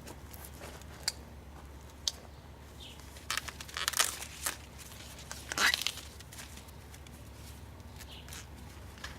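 Corn leaves and husks rustling and crackling in a few short bursts, about three and a half seconds in and again near six seconds, with a couple of light clicks before them, as ears of sweet corn are handled and picked.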